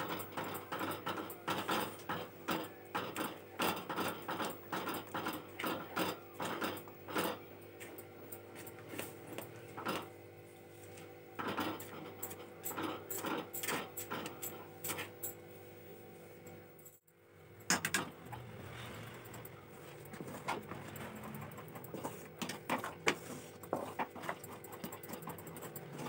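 Wooden spatula stirring and scraping against a metal kadai, working a thickening, gel-like cornflour and sugar mixture for halwa: quick repeated clicks and scrapes several times a second. After a short break about two-thirds of the way in, the stirring goes on more softly.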